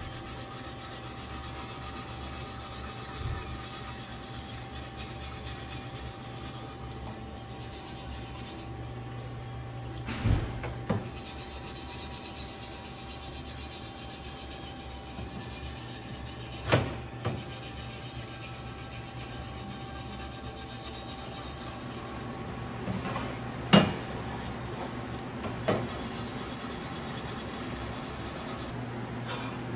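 Scrubbing a greasy LS engine part by hand in a solvent parts-washer tank: a steady rubbing over a low hum. A few sharp knocks break in, the loudest about four-fifths of the way through.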